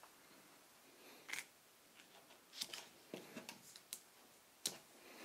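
Faint rustles and taps of a photo print being handled and pressed flat against a wall: a handful of short paper sounds, the sharpest near the end.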